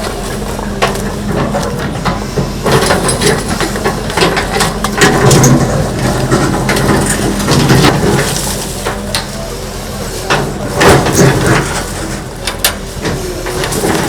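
Crunching, cracking and knocking of structures being broken down in a demolition, with many irregular impacts over a steady engine hum.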